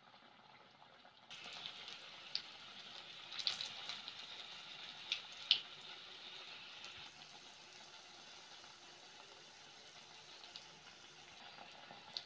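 Hot oil sizzling as vegetable-filled syabali pastries fry in a wok. The sizzle grows louder about a second in, with a few sharp pops and crackles over the next few seconds, then settles to a steadier, quieter hiss.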